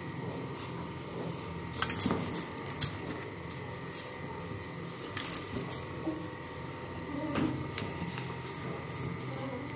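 Hands mixing raw meat and sliced onions in a steel bowl: a soft squelching and rustling, broken by several sharp clinks of metal jewellery knocking against the bowl, over a steady hum.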